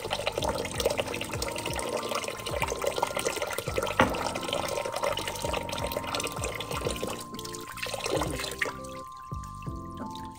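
Kitchen faucet running, its stream pouring into a sink of bathwater, with background music playing over it.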